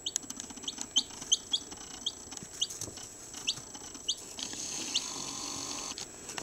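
Newly hatched chicken chicks peeping: short, high, rising peeps repeated irregularly, about two a second.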